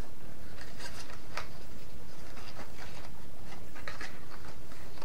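Cardstock rustling and creasing in a few short bursts as a paper gift box is folded by hand, over a steady low background hum.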